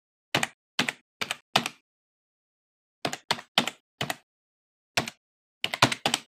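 Computer keyboard keystroke sound effects, about a dozen separate key clicks in uneven groups: four, a pause, four more, one, then a quick three near the end, keeping time with the letters of an on-screen title being typed out.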